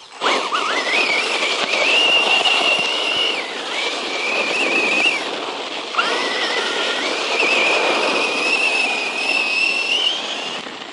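Brushless electric motor of a 1/10-scale RC truck whining at high throttle over a steady rushing noise. Its pitch climbs quickly at the start, holds high, sags briefly, then drops low about six seconds in and climbs again as the truck accelerates once more.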